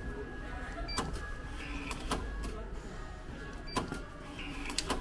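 Meal-ticket vending machine at a ramen shop being operated: four sharp clicks about a second apart, two of them with a short beep, over a steady low hum.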